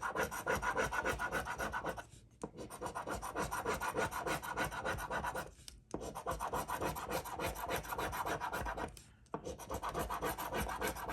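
Scratch-off lottery ticket being scratched: rapid back-and-forth rubbing strokes in four spells, with brief pauses about two, six and nine seconds in, as the latex coating is scraped off.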